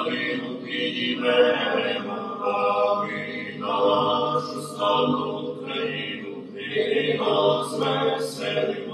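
A small group of men, seminary students, singing a cappella in harmony in phrases, with the reverberation of a church interior.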